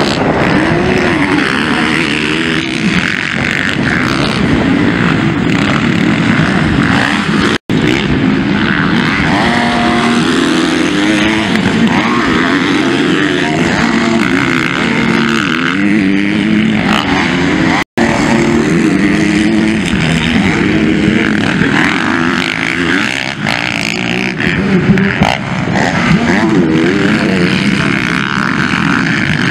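Motocross bikes racing, their engines revving up and falling back again and again as the riders power through corners and bumps. The sound cuts out for an instant twice.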